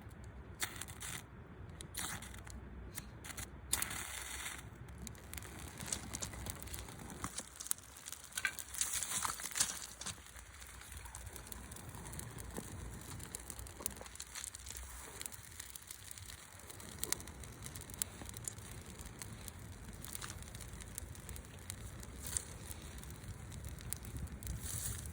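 Scattered crackles, clicks and rustling, irregular throughout, over a steady low rumble.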